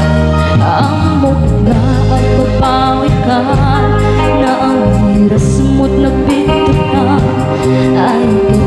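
Live band playing a song: a woman singing a wavering melody over sustained chords, electric bass and drums, with a tambourine in the band.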